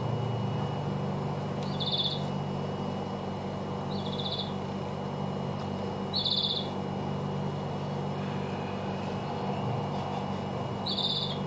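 A bird chirping, short high buzzy calls three times in the first half and once near the end, over a steady low electrical hum.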